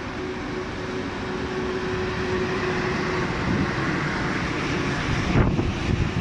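ČD class 151 (Škoda 65Em) electric locomotive pulling its train away from the platform and passing close by. A steady hum fades about halfway while the rumble and hiss of wheels on rail slowly grow louder.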